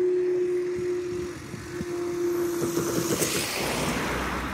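Level crossing audible warning alarm sounding a steady tone as the barriers rise, cutting off about three seconds in. It is followed by a rushing noise with a low rumble.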